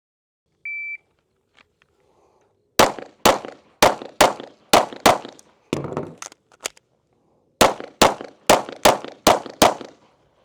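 Shot timer start beep, then a pistol firing six quick shots about half a second apart, a short pause for the reload, and six more shots at the same pace: a twelve-shot timed drill from a shot-timer beep to the last shot in just under nine seconds.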